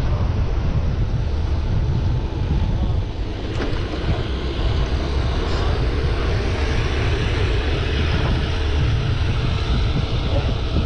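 Wind buffeting the microphone of a moving rider: a steady, loud, low rumble with no distinct engine note.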